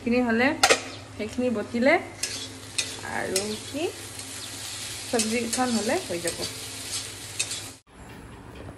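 Food sizzling as it fries in a pan and is stirred, with several short squeaky glides over the sizzle. It cuts off suddenly near the end.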